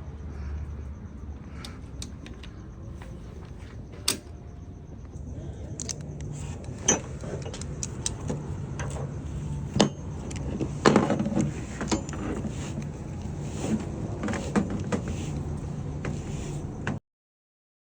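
A ratcheting tie-down strap being worked: irregular clicks and metallic clatter from the ratchet and hooks over a steady low hum, stopping abruptly near the end.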